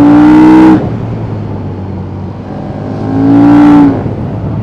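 KTM 1290 Super Duke R's V-twin engine pulling hard under throttle twice. The first pull rises in pitch and cuts off abruptly under a second in. After a stretch of quieter engine and wind, a second hard pull comes about three seconds in and also stops abruptly.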